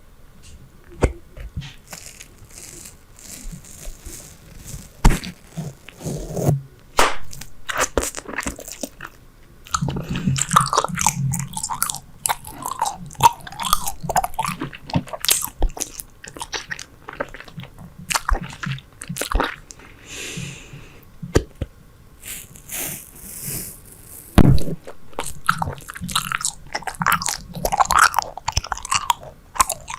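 Super Bubble bubble gum being chewed close to the microphone: irregular wet smacking and sharp clicking mouth sounds.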